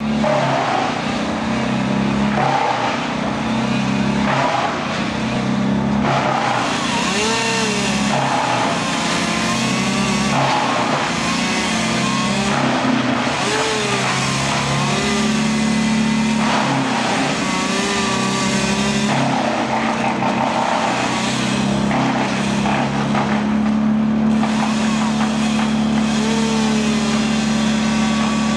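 Chainsaw running up in the tree, revving up and down again and again, then held at a steady high pitch through the last few seconds as it cuts into the branch.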